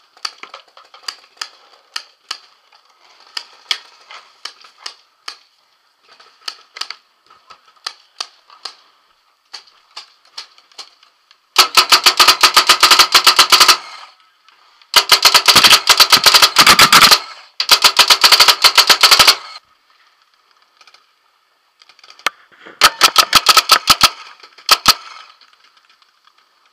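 Tippmann Alpha Black paintball marker firing four long strings of rapid shots, many per second, each shot a sharp pop. For about the first ten seconds there are only scattered fainter clicks and pops.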